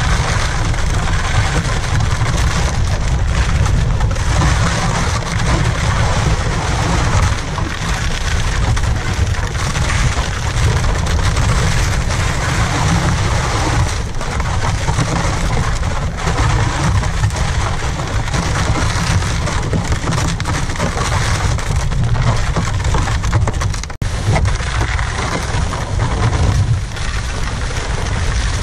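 Ice-fishing sled being dragged over crusty snow and ice, with the camera riding on it: a loud, continuous rough scraping hiss with a low rumble, dipping briefly about three quarters of the way through.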